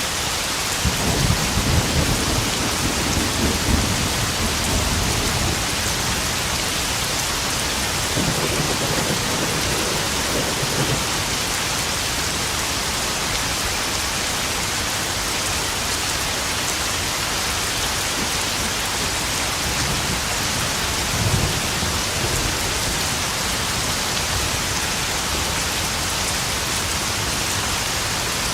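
Steady heavy rain pouring and pattering on puddles, with rolls of thunder rumbling low, the longest a few seconds in, a weaker one later, and a brief one past the middle.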